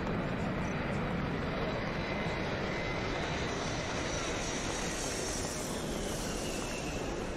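Steady rumble of a jet aircraft's engines, with a faint high whine that grows stronger about halfway through.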